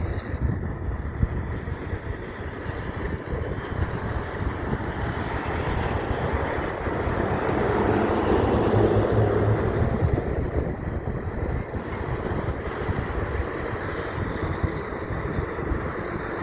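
Heavy truck driving past, its engine rumble and road noise swelling to a peak about eight to ten seconds in and then fading.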